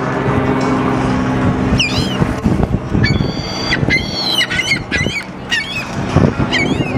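Ring-billed gulls calling: many short, high, yelping calls from about two seconds in, some in quick runs.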